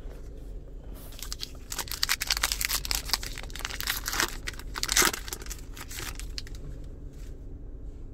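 A foil NBA Hoops trading-card pack wrapper being torn open and crinkled by hand, a run of crackling rustles with the loudest rip about five seconds in.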